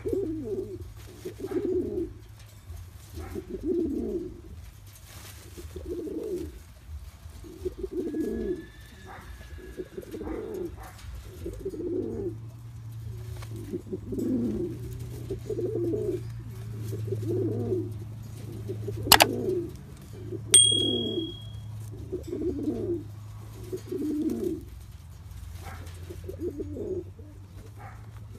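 Domestic pigeon cooing, a low coo repeated about once a second. About two-thirds of the way through there is a sharp click, followed by a short high beep.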